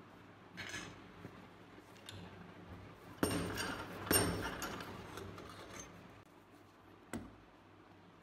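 Rusted pistol parts being handled on a frame clamped in a steel bench vise: two sharp metallic knocks about a second apart, each trailing off in a scraping rattle, then a single sharp click near the end.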